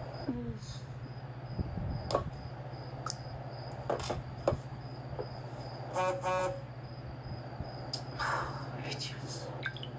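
A steady low hum with scattered soft clicks and knocks, and a short electronic tone from a mobile phone about six seconds in.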